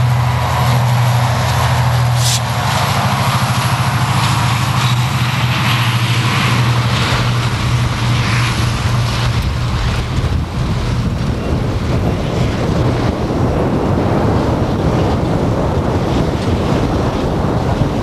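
A steady engine drone for the first several seconds, which gives way about seven seconds in to heavy wind rushing over the microphone.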